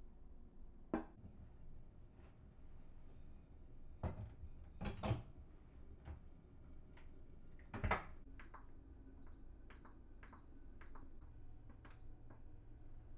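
Electric rice cooker being loaded and set: clunks as the inner pot goes in, a sharp snap of the lid shutting about eight seconds in, then a run of short high beeps as its control buttons are pressed.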